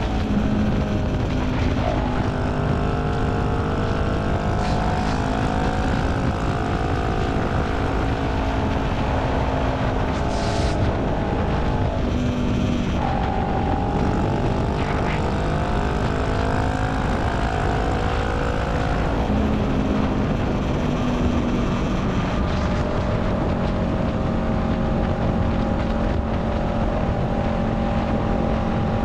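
2018 Honda Rebel 500's parallel-twin engine running steadily at highway cruising speed through a Radiant Cycles Shorty GP slip-on exhaust. The engine note shifts slightly about halfway through and again about two-thirds in.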